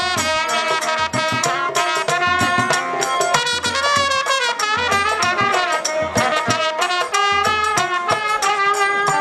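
Instrumental interlude of a Bangla folk jari song: a lead melody instrument plays over a steady beat, with no singing.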